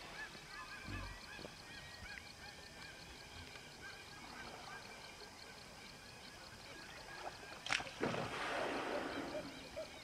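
Waterside ambience with many small bird calls repeating throughout. About three-quarters of the way in, a click is followed by a rushing, splashy noise lasting about a second and a half. Near the end come short calls repeated about twice a second.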